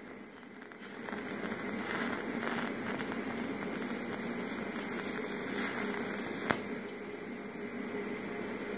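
DC TIG welding arc from a STAHLWERK multiprocess welder running steadily with a hiss and buzz, remelting a cratered weld on steel tube. The arc cuts off with a click about six and a half seconds in, leaving a fainter steady hiss.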